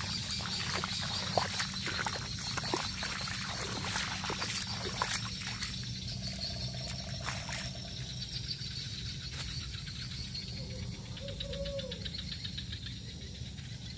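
Outdoor wet-forest ambience: insects buzzing, water trickling and a steady low hum, with scattered clicks and a couple of short animal calls.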